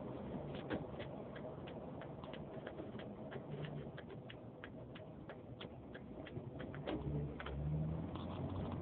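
A car's turn signal clicking inside the cabin, about three ticks a second during the turn, stopping a little over seven seconds in, over a low steady hum of engine and road noise.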